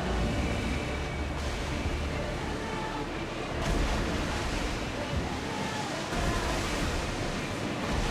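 Sea waves and wind, a steady rushing wash over a strong low rumble, heard from aboard a ship under way.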